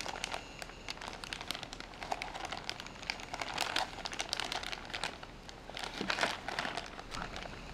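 Clear plastic bag crinkling and rustling as fingers handle and open it, in uneven flurries, strongest a little before four seconds in and again around six seconds in.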